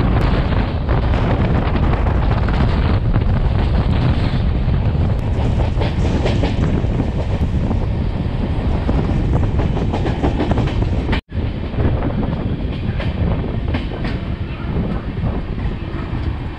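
Passenger train coach running at speed, heard at an open coach door: a loud, continuous rumble with the clickety-clack of wheels over rail joints. The sound drops out for an instant about eleven seconds in.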